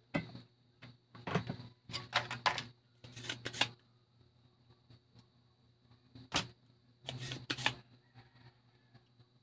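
Sharp clicks and clatters of a screwdriver and small metal parts worked on a CRT television's chassis board while a component is being removed, in several quick clusters with pauses between.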